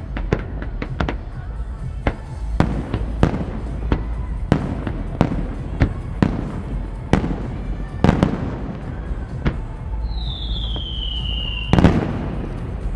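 Aerial fireworks shells bursting in a steady run of sharp bangs, one to two a second. Near the end a whistle falls in pitch for nearly two seconds and is cut off by the loudest bang.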